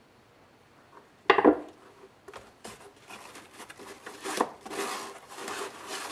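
A metal stepper motor set down on a wooden tabletop with one sharp knock about a second in, followed by uneven scraping and rubbing as foam packing is handled inside a cardboard box.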